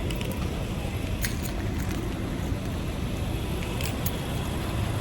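Steady low rumble of a vehicle or road traffic, with a few light clicks about a second in and again near the four-second mark.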